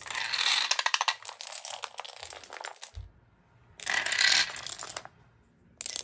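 A chain of dominoes toppling in quick succession, a rapid clatter of small clicks. The first run lasts about three seconds, a second run starts a little before four seconds in, and a short burst comes near the end.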